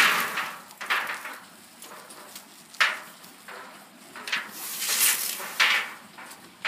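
Distilled rubbing alcohol burning in an aluminium foil pan, its flames flaring in several short rushing gusts a second or two apart.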